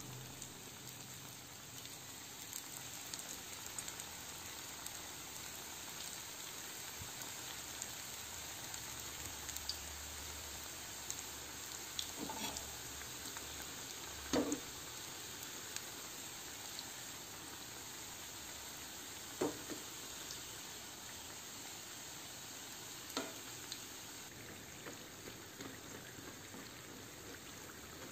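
Brick-pastry triangles deep-frying in hot oil in a pan: a steady sizzle, with a few short knocks of a slotted skimmer and a fork touching the pan.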